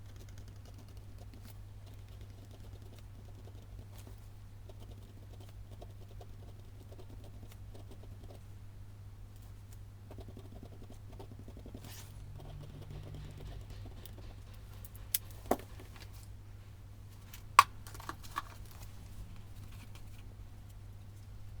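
Stationery being handled on a desk, played at double speed: light rustling and tapping, with a few sharp clicks or knocks in the second half, over a steady low hum.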